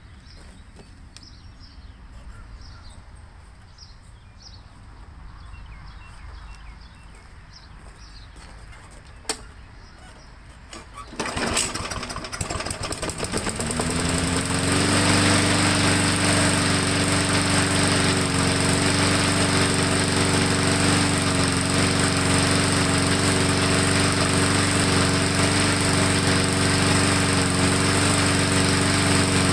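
Briggs & Stratton Classic lawnmower engine pull-started from cold after priming: it catches about eleven seconds in, revs up over a few seconds and settles into a steady run without stalling. It starts right up with three primes and needs no help, a sign that the cleaned carburetor now handles the cold start.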